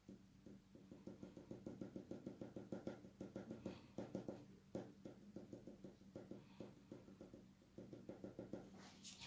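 White Cretacolor coloured pencil scratching on heavy smooth drawing paper in quick, short back-and-forth strokes, about four or five a second, with a sharp click near the end.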